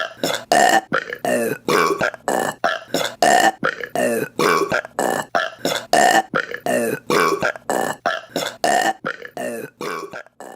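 A woman burping in a rapid run of short burps, about three a second, growing weaker near the end.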